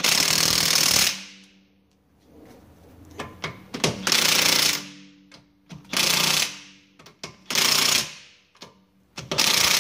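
Cordless impact wrench hammering lug bolts onto a car wheel in five short bursts, the first about a second long and the rest shorter, each running until the bolt stops turning: tightening the lug bolts at a low torque setting.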